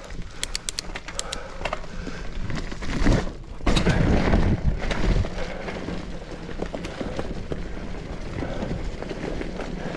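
Norco Torrent hardtail mountain bike being ridden on a damp dirt trail: tyres rolling with a steady rush of noise and frequent rattling clicks from the bike, and a louder burst of low rumbling noise about three and a half seconds in.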